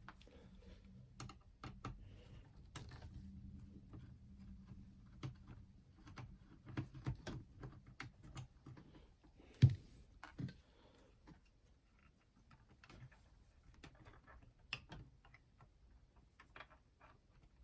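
Irregular light clicks and taps of hands and a tool working on a plastic clock radio/cassette player during disassembly, with one louder knock about ten seconds in.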